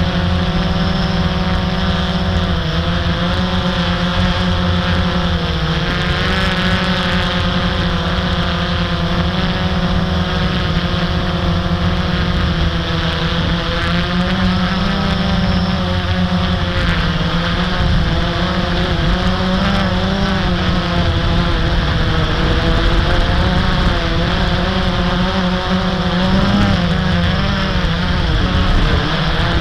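Blade 350 QX quadcopter's brushless motors and propellers buzzing steadily in flight, the pitch wavering up and down as the motor speeds shift.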